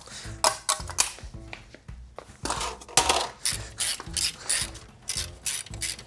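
Hand screwdriver working screws on a PC case's top panel: irregular clicks, taps and light metal rattles of screws and case parts being handled.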